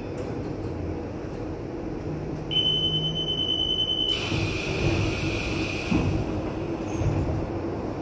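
Commuter electric train's door-closing warning buzzer, one steady high beep about a second and a half long, followed by the door sliding shut and ending in a thump about six seconds in, over the train's steady low hum.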